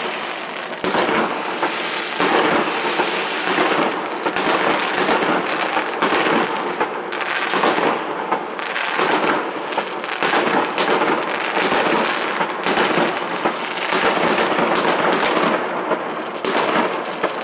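Aerial fireworks going off in a rapid, unbroken string of bangs, shot after shot with no pause.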